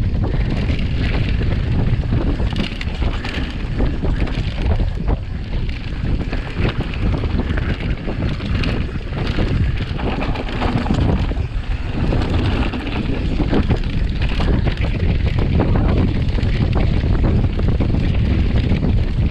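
Wind buffeting the microphone of a mountain bike descending fast on a dry dirt trail, mixed with the tyres crunching over gravel and the bike rattling over bumps in a steady stream of small knocks.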